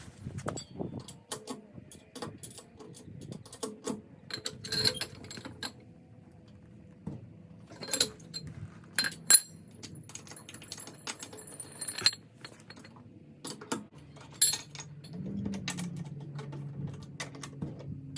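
Metal tools and lug nuts clinking and rattling while a car wheel is taken off, in scattered sharp clicks. A low steady hum joins near the end.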